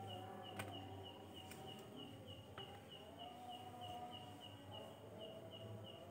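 Faint, steady chirping at an even pace, about three short chirps a second, with a few faint clicks in between.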